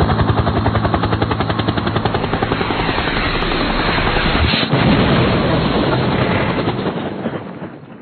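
D3 crawler bulldozer's diesel engine running with a fast, even pulsing beat. Its tone changes about halfway through, then it fades out near the end.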